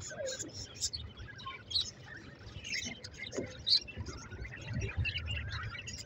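A flock of budgerigars chattering, with many short, quick chirps and warbles overlapping.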